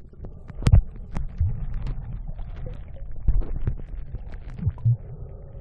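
Muffled low rumbling of water and handling noise on a phone filming underwater, with scattered knocks and clicks; the loudest is a thump about three-quarters of a second in.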